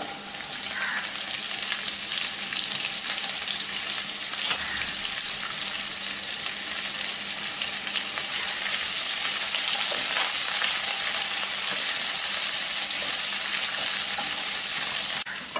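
Sliced onion, then green chillies, sizzling in hot oil and ghee in a nonstick pan while being stirred with a spatula. The sizzle gets louder about halfway through and falls off just before the end.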